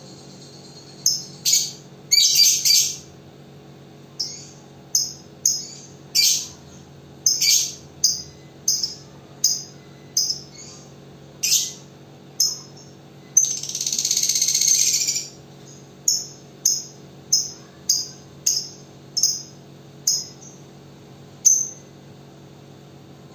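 Caged lovebird giving short, shrill calls, about one or two a second, with one longer continuous chatter of about two seconds a little past the middle: the 'ngekek' trill that keepers train fighter lovebirds to lengthen.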